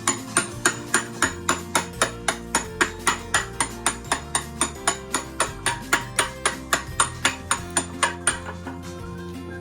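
Rapid, even hammer taps on metal, about three and a half a second, stopping near the end, over background music.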